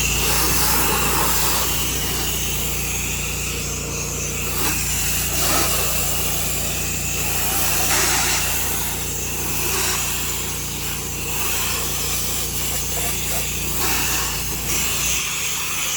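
Pressure washer engine running steadily under a broad hiss of high-pressure water spray; the engine's low hum drops out near the end.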